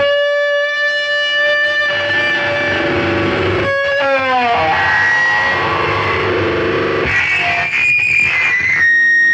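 Live noise music from electronic effects gear: a loud, steady pitched drone that drops in pitch about four seconds in. High whistling tones like feedback follow near the end.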